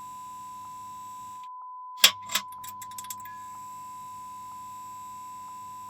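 A steady beep tone runs throughout as a sample watermark. A low electrical hum cuts out about a second and a half in. Half a second later a light switch clicks twice, a few quick faint ticks follow as the electric light flickers on, and the low hum returns and holds steady.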